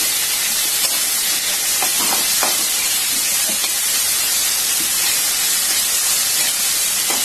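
Chopped onion, tomato, dry coconut, garlic and ginger sizzling in hot oil in a frying pan, a steady hiss, with a few faint scrapes of a spatula stirring them about two seconds in.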